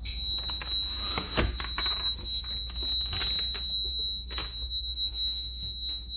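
Honeywell home alarm panel sounding its alarm: one steady high-pitched tone that comes on at once and holds, set off by the dining room back window being opened while the system is armed. A few clicks and knocks from handling sound over it.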